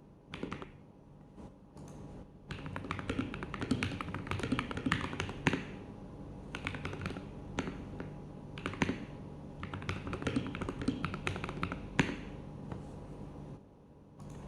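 Typing on a DareU EK861 mechanical keyboard fitted with MMD Panda tactile switches and Akko ASA keycaps, with foam added in the case and under the PCB. A few single keystrokes, then fast continuous typing from about two and a half seconds in, with one louder key strike near the end, stopping shortly before the end.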